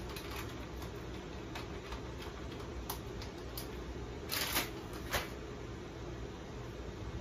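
Plastic food packaging crinkling and rustling as it is handled, with scattered small clicks and two louder rustles about four and a half and five seconds in, over a steady low hum.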